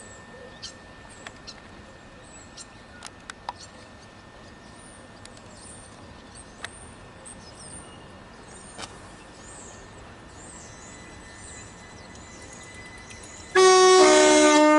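Small birds chirping over a quiet background, then near the end a Class 377 Electrostar electric train sounds its two-tone horn loudly: a higher note followed by a lower one.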